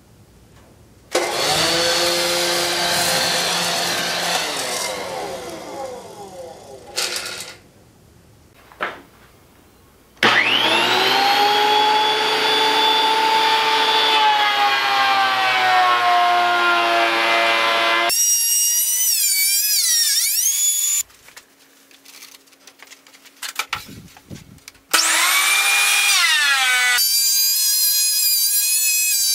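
DeWalt benchtop thickness planer running, heard in a string of clips that cut in and out abruptly. The motor whine winds down, then starts up and runs steadily, then dips and climbs in pitch. Near the end it falls and settles into a steady whine again.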